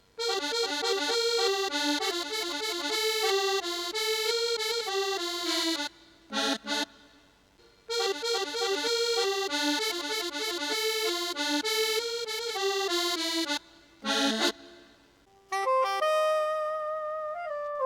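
A Yamaha arranger keyboard voice plays a fast run of notes that ends on a short chord. The same phrase comes twice with a short pause between, and a new, more held voice starts near the end.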